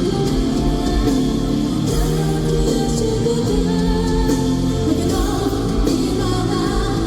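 Live J-rock band playing loudly, with guitar, drums and keyboard under a female voice singing.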